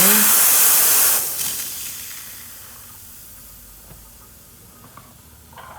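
A lever espresso machine's steam wand blasts a loud hiss of steam to purge and clean the wand after frothing milk. The valve shuts about a second in, and the hiss dies away over the next couple of seconds.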